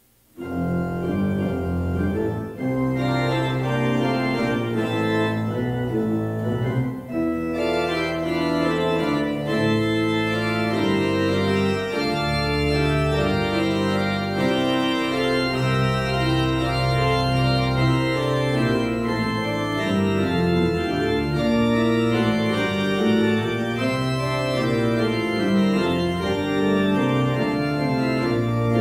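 Pipe organ playing slow music in full, sustained chords, beginning abruptly.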